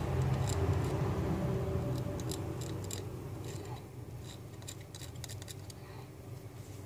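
Thin metal blade scraping and clicking against the pins of a hard drive's SATA connector as it is pried off the circuit board: a scattered series of small sharp clicks over a low rumble that fades over the first few seconds.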